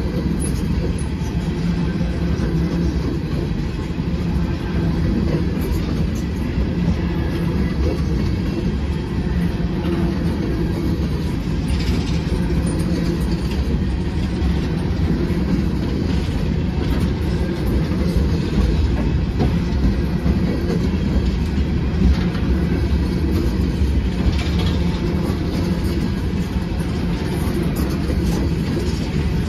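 A long string of open-top coal hopper cars rolling past: a steady low rumble of steel wheels on the rails.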